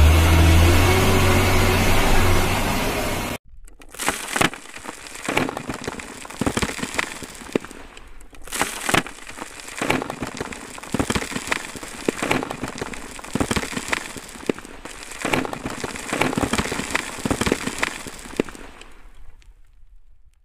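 A loud low engine-like hum cuts off about three seconds in. Then soil and gravel pour into a plastic toy dump truck's tipper bed: many small irregular clicks and rattles of stones hitting plastic and each other, thinning out and fading near the end.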